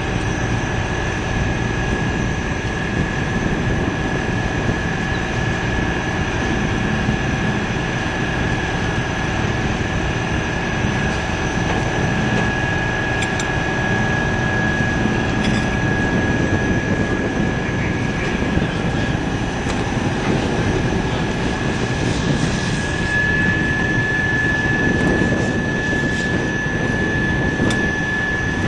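Steady rumble of vehicle engines, with a thin, steady high whine over it.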